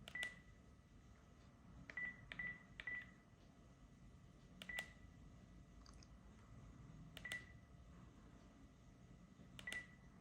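Keys pressed on a Panasonic KX-TGD322 cordless phone handset, seven presses in all. Each press gives a click and a short high key beep, spaced unevenly with a quick cluster of three a couple of seconds in.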